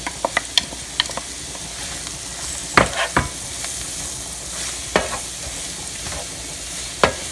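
Shrimp and chopped herbs sizzling in a frying pan as a bamboo spatula stirs them, with sharp knocks of the spatula against the pan, the loudest about three seconds in and just before the end.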